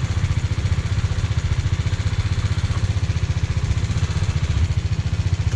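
BMW G 310 GS's single-cylinder engine idling steadily with an even, rapid low pulse; a normal note, not very bassy.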